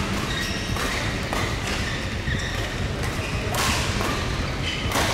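Ambience of a large indoor badminton hall: a steady low rumble with several sharp knocks and thuds scattered through it, the loudest about three and a half seconds in.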